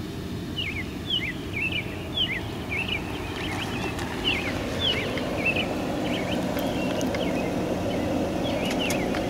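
A car driving slowly up a driveway, its engine and tyres a steady rumble that grows a little louder as it comes closer. Birds chirp over it, short quick calls repeated throughout.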